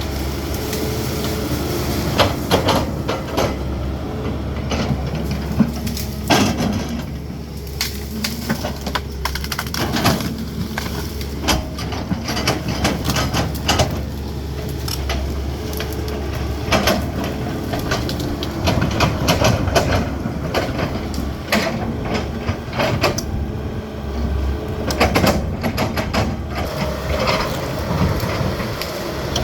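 CAT 320D excavator's diesel engine running steadily under work, with irregular knocks and cracks throughout as it handles brush and wood in land clearing.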